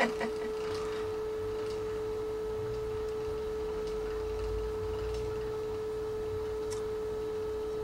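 A steady, single-pitched electrical hum, with a faint low rumble beneath it.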